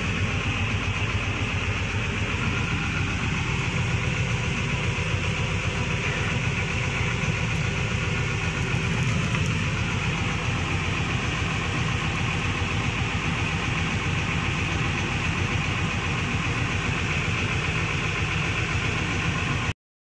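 Sumitomo SH350 excavator's six-cylinder Isuzu diesel running steadily, heard from inside the cab as a dense low pulsing. It is running on failing injectors: numbers 5 and 6 dead and 1 to 4 dribbling instead of spraying, the cause of its thick black smoke and low power. The sound cuts off abruptly near the end.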